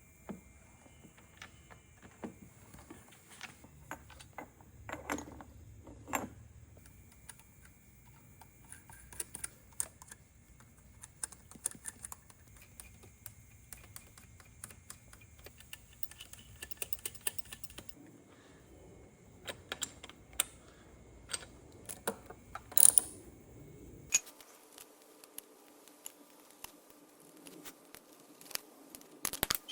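Scattered light clicks and taps of metal tools and engine parts being handled during reassembly of a two-stroke dirt bike's cylinder, with one sharper knock a little past three-quarters of the way through.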